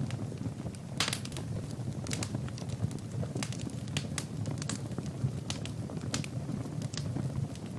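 Wood fire burning in a fireplace: irregular crackles and sharp pops, one stronger pop about a second in, over a steady low rumble of the flames.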